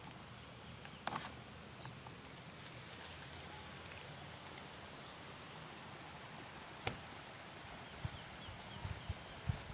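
A single suppressed shot from a PCP Mouser air rifle: one sharp, short crack about seven seconds in. A softer knock comes about a second in and low handling thumps near the end, over a steady outdoor hiss with a faint high insect drone.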